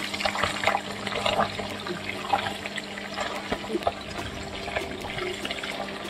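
Paneer cubes shallow-frying in hot oil in a pan, the oil sizzling steadily with dense small crackles and pops.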